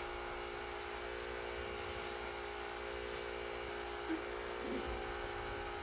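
Milking machine's vacuum pump running with a steady, even hum.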